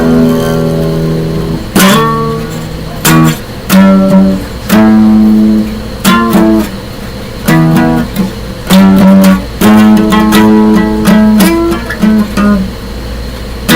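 Acoustic guitar strummed hard in a metal style, with chords left to ring alternating with short choppy stabs.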